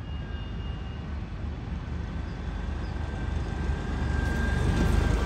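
A double-decker bus's engine running close by: a low rumble that grows steadily louder as the bus draws alongside. A faint whine above it slowly falls in pitch.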